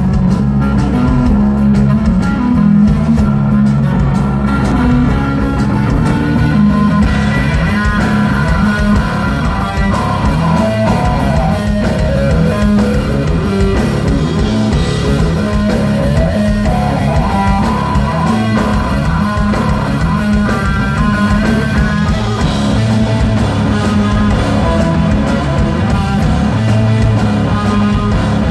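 Stoner rock band playing live and loud: distorted electric guitar over bass guitar and drum kit, a steady heavy groove.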